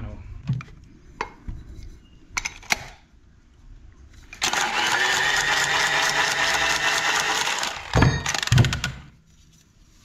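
Cordless copper-pipe tool running steadily on the end of a short copper pipe for about three and a half seconds, starting about four and a half seconds in. It is followed by two heavy knocks, and light handling clicks come before it.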